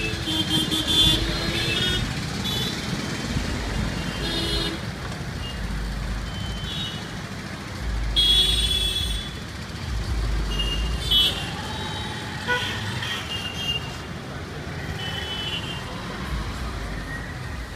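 Dense city traffic at an intersection: a steady low rumble of idling and moving engines, with many short horn toots from the surrounding vehicles, the longest and loudest about eight seconds in.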